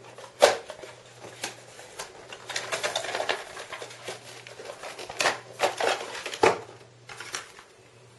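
Cardboard box being opened and its contents handled: scattered clicks and knocks of the flaps and packaging, with rustling in between, over a faint steady low hum.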